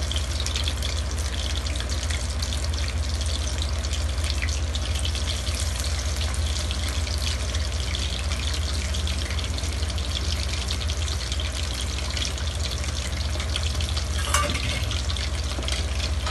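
Fish pieces in a gram-flour and cornflour coating deep-frying in hot mustard oil, just lowered in, with a dense, steady crackling sizzle. A steady low hum runs underneath, and there is one sharper click near the end.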